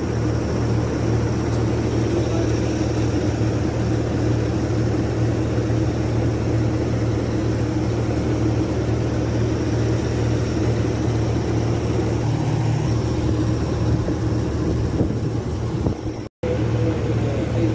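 Steady low mechanical drone that does not change in pitch, cutting out for a split second near the end.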